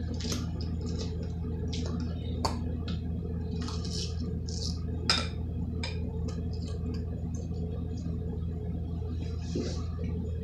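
Metal fork clicking and scraping against a bowl, with wet chewing sounds from eating salad. The sharpest click comes about five seconds in, over a steady low hum.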